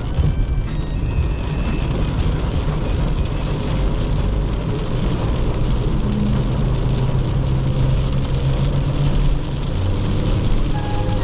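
Inside the cabin of a VW Vento 1.5 TDI cruising on a wet highway: a steady low drone from the four-cylinder turbodiesel and the road, under an even hiss of tyres on wet tarmac and rain.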